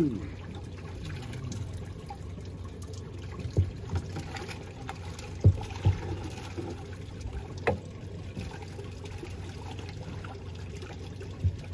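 Water lapping and trickling against the hull of a small open fishing boat, over a low steady hum. A few sharp knocks on the boat stand out in the middle.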